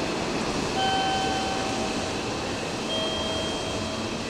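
Hanshin Railway electric train running into the platform, a steady rush of rail noise. Two held high tones sound over it, one about a second in and another about three seconds in.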